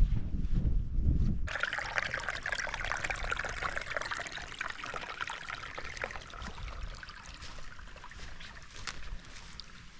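Wind rumbling on the microphone, which cuts off about a second and a half in. A steady trickle of running water follows and slowly fades.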